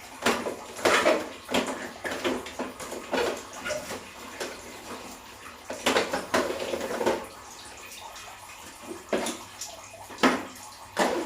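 Water splashing, with irregular knocks and clatter of hard parts being handled and rinsed.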